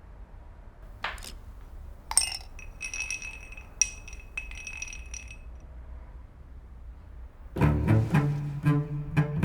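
A glass is struck with a clink and rings for about three seconds, among a few light knocks. Near the end, plucked double bass music comes in.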